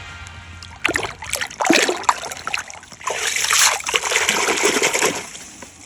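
Lake water splashing and sloshing in the margin as a large carp is handled in the water, in a run of irregular splashes starting about a second in and dying down near the end.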